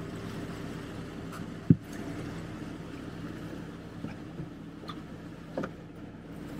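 Sherp amphibious ATV's diesel engine running steadily, with one sharp knock a little under two seconds in and a few lighter clicks later.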